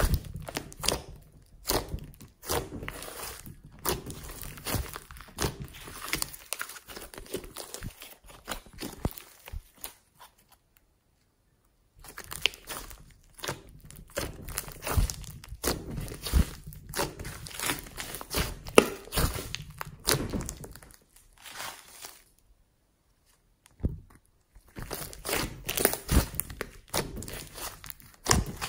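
Hands squeezing, pressing and stretching a large lump of glossy slime, giving a dense run of irregular small clicks and crackles. It falls quiet twice for a second or two.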